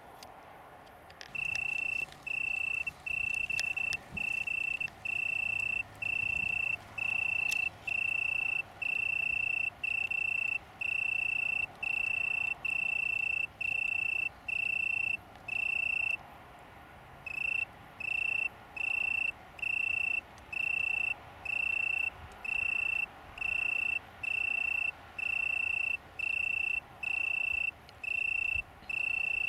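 Male Italian tree cricket (Oecanthus pellucens) singing: a clear, high trill in regular bursts of under a second, about one a second. It starts a little over a second in and breaks off for about a second near the middle.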